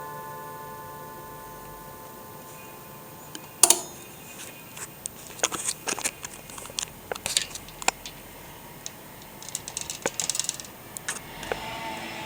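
Struck chime bars of a SEIKO SMC-620 mechanical music chime ringing out and fading, heard through a vacuum-tube amplifier. They are followed by a run of irregular sharp clicks and knocks, the loudest one about four seconds in. A steady hiss comes up near the end.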